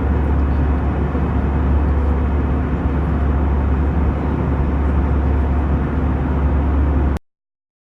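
Steady drone of engines and airflow heard inside an Airbus A320's cabin, with a strong low hum. It cuts off abruptly about seven seconds in.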